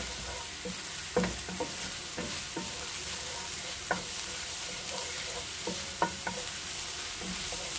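Crushed ginger and garlic sizzling in hot olive oil in a nonstick frying pan, being stir-fried until fragrant. A wooden spatula scrapes and taps against the pan every second or so.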